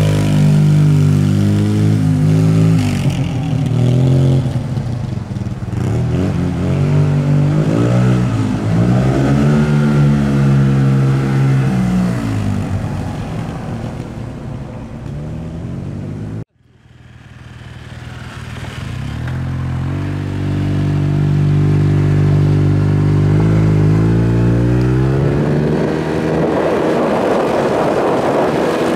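Yamaha T-MAX 530 maxi-scooter's parallel-twin engine through an Akrapovic exhaust, ridden hard in sport mode, its pitch climbing and falling repeatedly as it accelerates and eases off. The sound cuts off abruptly about 16 seconds in, builds back up and holds at high revs, with a wind-like rush near the end.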